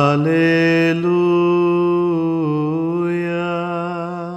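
A man's voice chanting unaccompanied liturgical chant: long held notes that step slowly up and down in pitch, fading out at the end of the phrase.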